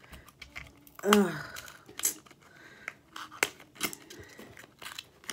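A small cardboard lipstick box being opened and handled, making a scatter of light clicks and scrapes. A short voiced hum falls in pitch about a second in.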